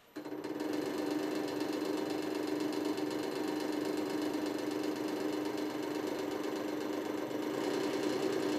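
Hydraulic press's pump motor switching on suddenly and running with a steady hum as the ram comes down and starts to load the pliers' handles.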